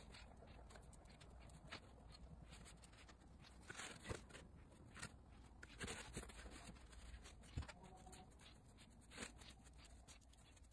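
Near silence with a few faint, scattered clicks and rustles: hands handling small rhinestones on a cardboard work surface.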